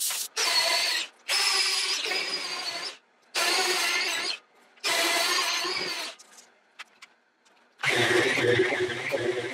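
Power sanders sanding a green maple bowl on the lathe: a right-angle disc sander runs in four short stretches with a steady whine, each starting and stopping abruptly. After a pause with a few faint clicks, a second sander with a deeper hum starts about eight seconds in.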